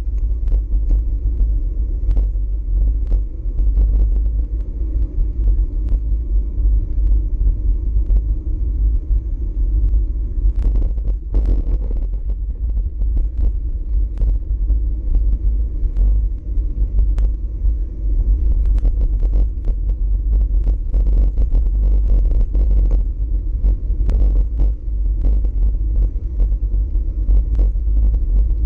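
Wind buffeting a GoPro Hero4 Session's microphone on a moving bicycle: a steady deep rumble, with many small clicks and knocks throughout.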